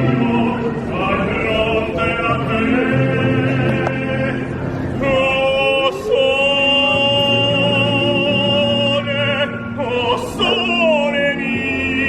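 Background music: operatic classical singing, long held notes with a wavering vibrato over orchestral accompaniment.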